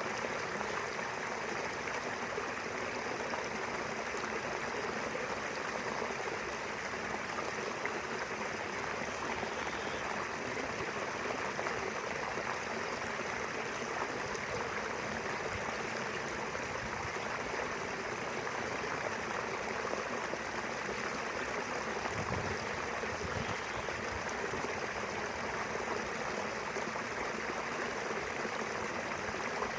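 River water flowing steadily, a continuous even rush of running water.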